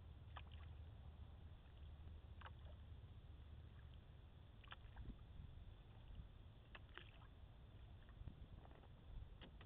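Faint canoe paddling: a short splash or drip from the paddle about every two seconds over a low, steady rumble.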